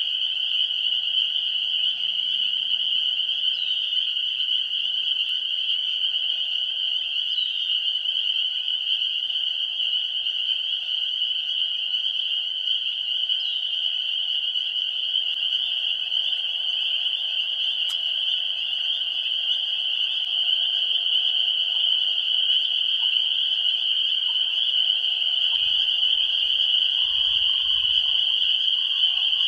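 Deafening chorus of a great many frogs calling at once, merging into a steady high-pitched drone that never lets up, with a weaker, lower layer of calls beneath it.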